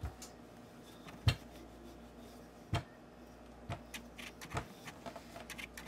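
Wooden rolling pin rolling out dough on a hard worktop: a few sharp knocks about a second apart, then a run of lighter clicks near the end.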